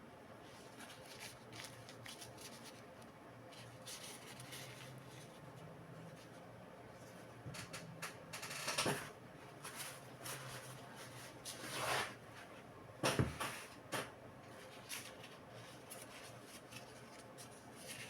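Faint hands-on handling of laptop parts: light scraping and rustling with a few sharper clicks and knocks, the loudest coming in the second half.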